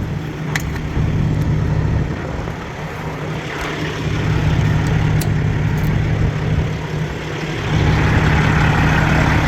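Vehicle engine idling steadily, with a few light clicks over it.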